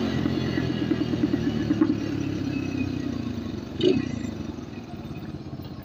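Motorstar Z250R cafe racer's engine running as the bike rides along, its level gradually easing off, with a short louder blip about four seconds in.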